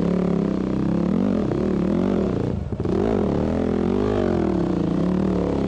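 Enduro dirt bike engine being ridden on rough trail, its revs rising and falling over and over as the throttle is blipped, with a brief drop in revs a little before the midpoint.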